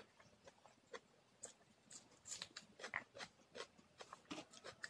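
Close-miked chewing of rice and salad: a scatter of short, faint crunches and wet mouth clicks, growing busier about halfway through.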